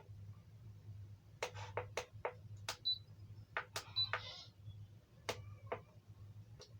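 Scattered clicks and knocks of handling an opened induction cooker, with two short high beeps from its control-panel buzzer about three and four seconds in, over a steady low hum.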